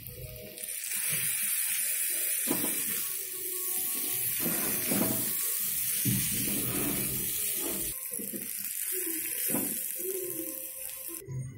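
Chicken pieces sizzling in hot oil in a wok, with a steady hiss, while a metal spatula stirs and scrapes them against the pan. The hiss cuts off suddenly near the end.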